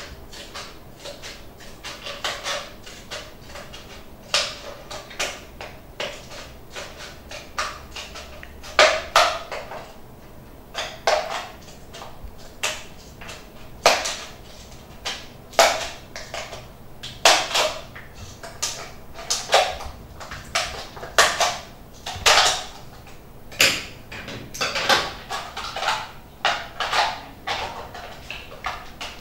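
Scissors cutting through a thin plastic mineral-water bottle: an irregular series of sharp, crackly snips, one every second or two, as the blades bite into the plastic.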